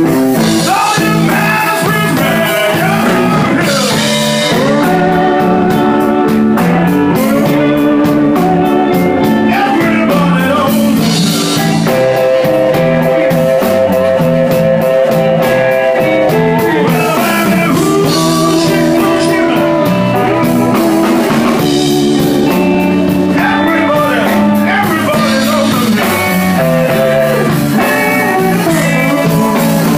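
Live blues band playing, with electric guitar, including a long held note about halfway through.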